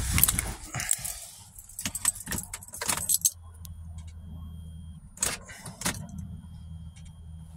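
Car keys jangling and clattering as another start attempt is made on a car that is struggling to start on E85. From about three seconds in, a low steady hum follows, broken by a few sharp clicks.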